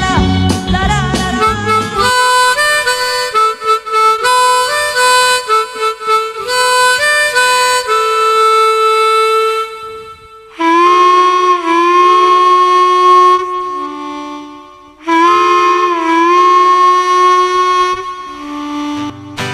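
Song with a harmonica solo. The full band drops out about two seconds in, leaving the harmonica alone to play phrases of held and bent notes, with short breaks between them, before guitar accompaniment comes back in near the end.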